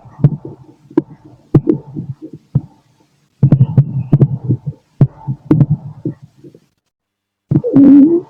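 Heartbeat and stomach gurgles heard through a stethoscope pressed to the body: low thumps in a repeating beat, cutting out briefly twice, with a rising gurgle from the stomach near the end.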